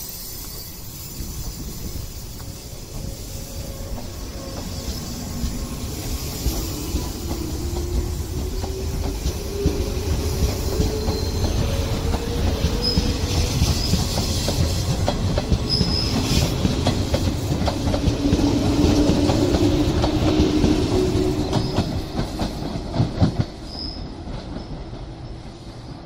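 An electric train passing close by, its wheels clacking over rail joints, with a pitched motor hum that shifts in pitch and a few brief high squeals from the wheels. The sound builds to its loudest a few seconds before the end, then eases off.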